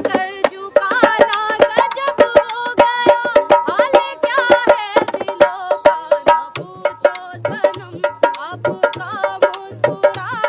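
A woman singing a song, accompanied by a hand-played dholak (two-headed barrel drum) keeping a steady rhythm of low bass-head thuds and sharp slaps.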